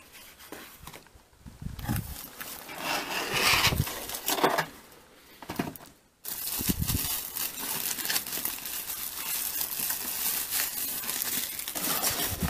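Packaging being handled and unwrapped: irregular rustles in the first half, then, after a sudden brief break about halfway, steady continuous crinkling.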